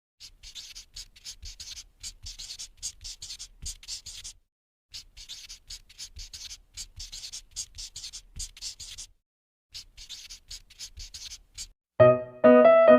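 Oil pastel scratching across paper in quick back-and-forth strokes, about four a second, pausing twice. Near the end, louder piano music starts.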